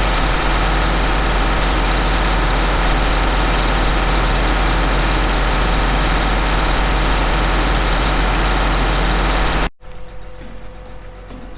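Heavy farm vehicle engine running steadily with a strong low hum. It cuts off abruptly near the end, giving way to a much quieter steady hum.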